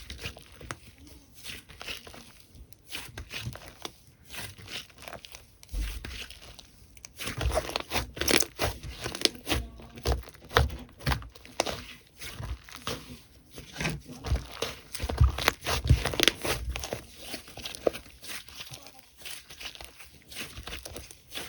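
Slime being handled: irregular crackling and popping clicks, sparse at first and busier and louder from about seven seconds in.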